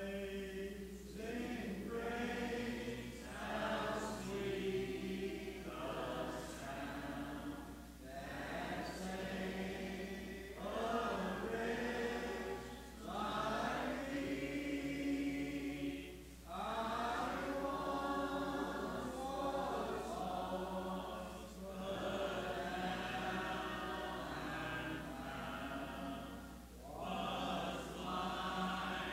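Congregation singing a hymn together, unaccompanied by instruments, in long phrases with short breaks between lines.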